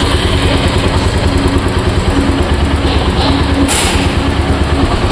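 Royal Enfield Meteor 350's single-cylinder engine idling with a steady, even beat. A brief hiss comes about three and a half seconds in.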